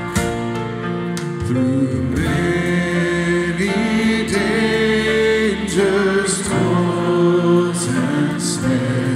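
Live church worship music: a band with acoustic guitar accompanying a choir and singers, the singing growing fuller about two seconds in.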